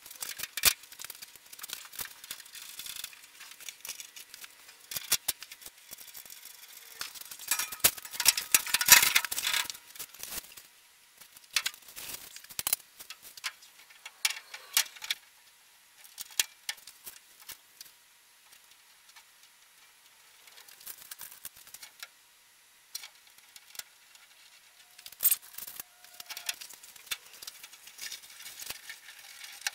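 Irregular clicks, taps and small metallic rattles as parts and fasteners are handled and fitted on a sheet-metal media blast cabinet. There is a dense run of clatter about 8 to 10 seconds in, and more scattered knocks later.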